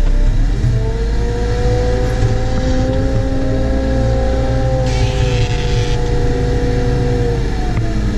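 Cat 914G wheel loader's diesel engine running steadily under load, heard from inside the cab as the machine drives with a full bucket of snow. A whine in the drive rises slightly and then falls again near the end, and there is a short hiss about five seconds in.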